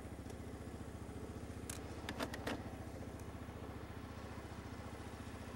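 Yamaha Grizzly ATV's single-cylinder engine idling steadily, with a few sharp clicks about two seconds in.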